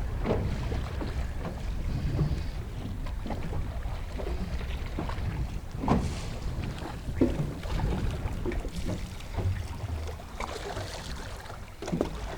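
Wind buffeting the microphone as a steady low rumble, with a few scattered knocks and clicks on the boat, the loudest about six seconds in and another near the end.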